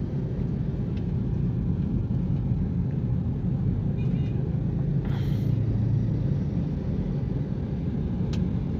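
Steady low road rumble inside the cabin of a moving Toyota Prius, with a brief hiss about five seconds in.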